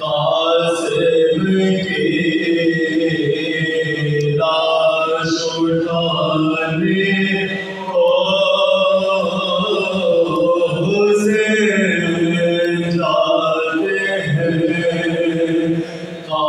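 Soz-khwani: a group of men chanting a mournful elegy without instruments, a lead male voice at a microphone with companions singing along in unison. Long held phrases with short breaks about every eight seconds.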